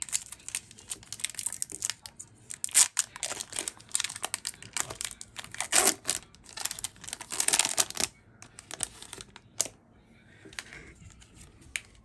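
Foil booster-pack wrapper being torn open and crinkled by hand: a run of sharp crackles and rips, busiest for the first eight seconds and thinning out near the end.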